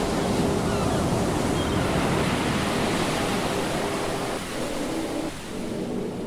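Strong wind blowing across the microphone, mixed with surf on a shingle beach: a steady rushing noise that eases slightly a little after four seconds in.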